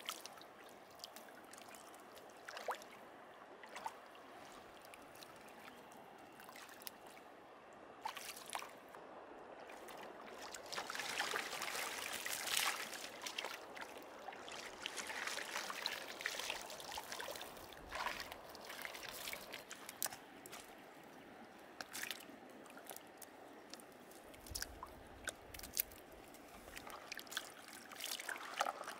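Shallow stream water sloshing and splashing as a hand landing net is scooped through it and lifted out dripping, with trickling and scattered small splashes between. The splashing is loudest in the middle stretch.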